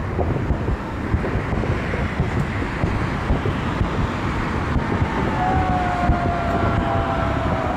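Massed fireworks salute: a continuous rumble of many overlapping shell bursts with crackle. A thin whistle gliding slowly down joins in the last few seconds.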